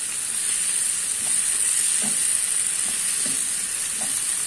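Green beans with tomato and ground spices sizzling steadily in oil in a nonstick frying pan, stirred with a wooden spatula that scrapes lightly against the pan now and then.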